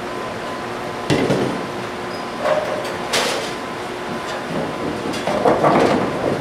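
Bowling alley din: a steady rumble of balls and lane machinery with a faint steady hum. Several sharp knocks and clatters of balls and pins stand out, the loudest bunched near the end.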